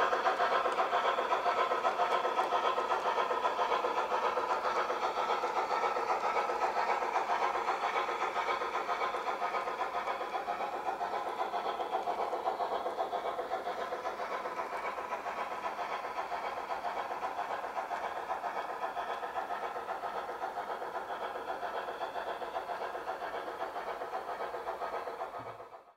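Garden-railway model train running along the track, a dense steady running noise that slowly fades and then cuts off abruptly just before the end.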